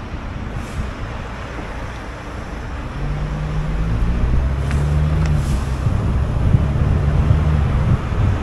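Car driving on city streets: low road and engine rumble with wind buffeting the microphone. The engine tone grows louder and shifts in pitch from about three seconds in.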